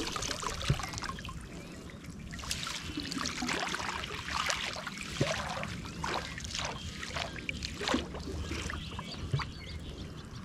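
Water dripping and splashing in irregular patters around a canoe, with two sharper knocks, one a little under a second in and one about eight seconds in.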